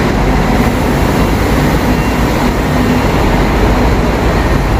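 A large double-decker diesel coach running, a loud, steady, even engine-and-road noise heavy in the low end.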